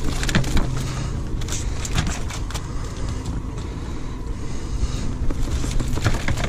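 Boat's outboard motor idling with a steady low hum, while a wire crab trap is shaken out over a plastic basket, giving scattered light rattles and knocks as the crabs drop out.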